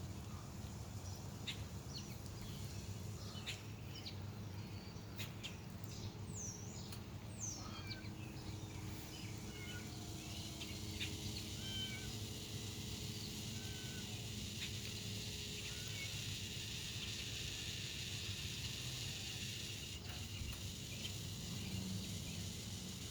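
Steady low sucking, gurgling noise of floodwater in a flooded street, with birds chirping over it.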